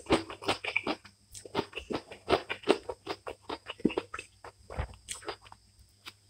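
Close-miked eating sounds: wet, irregular chewing and lip-smacking clicks of a person eating rice and curry by hand. They thin out toward the end.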